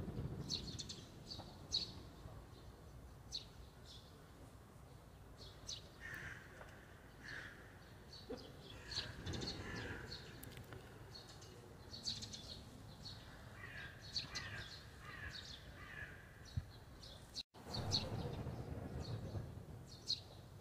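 Outdoor birdsong: small birds chirping in short high notes again and again, with lower calls in clusters about six to ten seconds in and again around fourteen to sixteen seconds. A low rumble sits under the start and the last few seconds, and the sound breaks off for an instant about three quarters of the way through.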